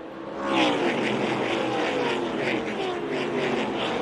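A pack of ARCA V8 stock cars passing at full throttle on the start of the race, many engine notes overlapping and falling in pitch as the cars go by. The sound swells about half a second in and stays loud.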